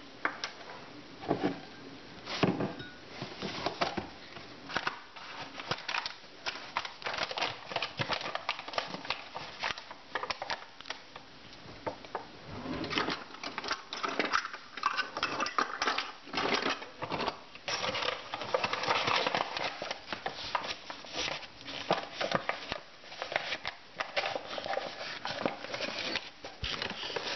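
Measuring cup and spoon clicking, tapping and scraping, many irregular small knocks, as a cup of flour is scooped and levelled.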